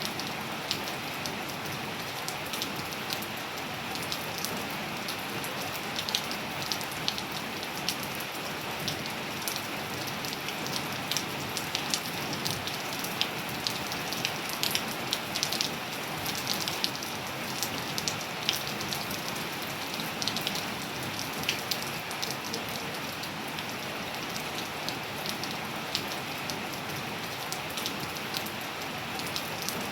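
Steady rain falling on a surface, with many close individual drops ticking sharply and irregularly over the even hiss of the rainfall.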